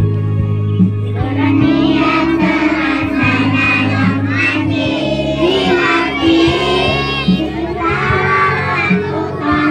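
A group of young children singing together over backing music, their voices coming in about a second in above a steady low accompaniment.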